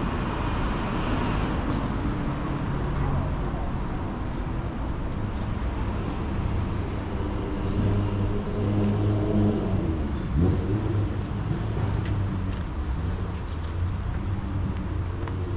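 Road traffic: motor vehicles running and passing, with one engine rising in pitch about ten seconds in.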